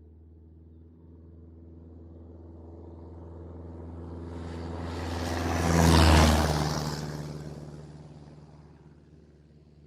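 Single-engine Cessna propeller plane drawing closer with a steady engine drone, growing louder until it passes close about six seconds in, then fading away as it moves off.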